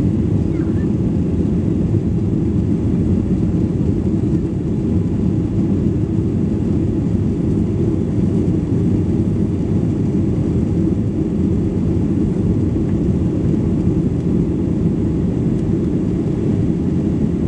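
Steady low rumble of a Boeing 737-800's CFM56-7B turbofan engines and rushing air, heard inside the passenger cabin during the climb after takeoff.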